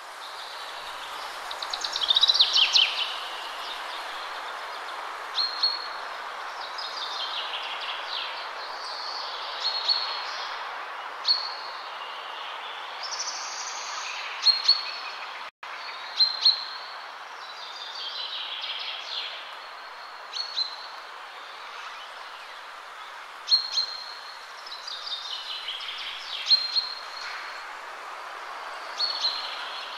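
Songbirds singing over a steady background hiss: short high chirps and falling song phrases recurring every second or few. The sound cuts out for an instant about halfway through.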